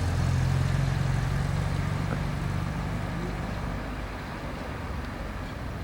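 Low, steady engine rumble of a motor vehicle, fading after about three seconds.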